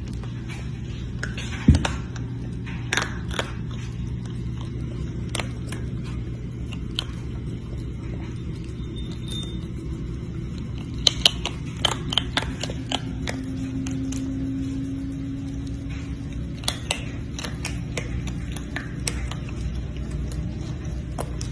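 Baby raccoon eating snacks from a ceramic bowl: scattered small clicks and crunches of chewing and of food and claws against the bowl, the loudest about two seconds in and a cluster in the middle, over a steady low hum.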